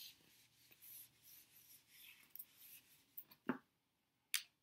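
Felt whiteboard eraser wiping across the board in faint, hissy strokes. A few short knocks follow about three and a half seconds in, then a sharp click near the end as the eraser is put down and a marker is handled.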